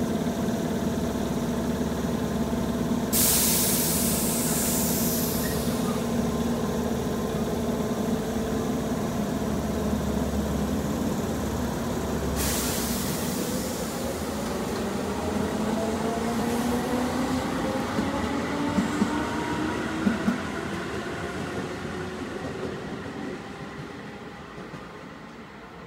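Electric commuter train at the station platform: a steady electrical hum, broken twice by a loud hiss of air. Then the traction motors whine in rising pitch as the train pulls away, with a few clacks of wheels over rail joints, and the sound fades as it leaves.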